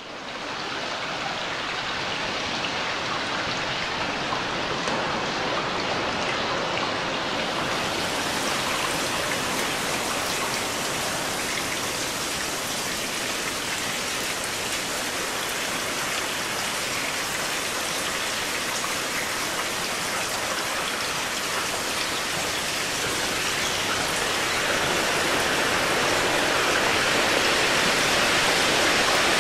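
Omnisphere 2 patch 'Gotham Rains' playing a steady, dense rain texture built from field-recorded night rain, layered with a noise oscillator. The highest hiss opens up about a quarter of the way in, and the rain grows a little louder near the end.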